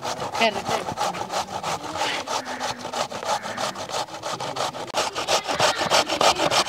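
Carrots being grated by hand on a stainless-steel box grater: a quick, even rhythm of rasping strokes.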